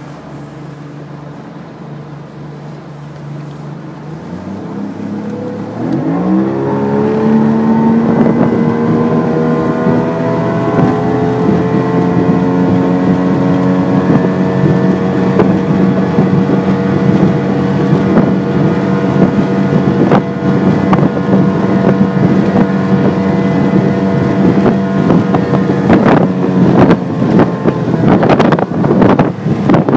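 Evinrude 115 HO G2 three-cylinder two-stroke outboard accelerating hard from low revs, its pitch rising steeply about four to six seconds in, then running steadily at high revs. Gusts of wind noise on the microphone come in near the end.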